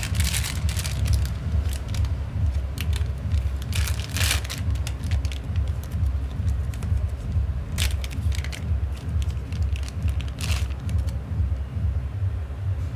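Crinkling and crackling of a small plastic zip bag and paper wrapper being handled and opened, in short bursts about four, eight and ten and a half seconds in, over a steady low rumble.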